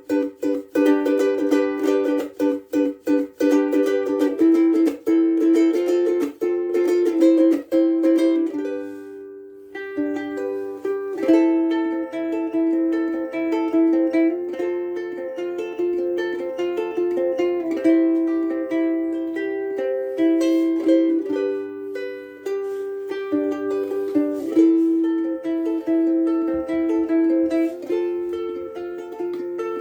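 Soprano ukulele played solo: brisk strummed chords for the first several seconds, a brief pause, then a picked melody with ringing notes.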